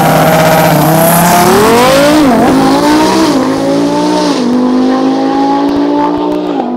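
Twin-turbo Audi R8 V10 held at launch revs on the start line, then launching about a second in and accelerating hard down the drag strip. The engine pitch climbs and drops sharply at three quick upshifts, and grows a little fainter as the car pulls away.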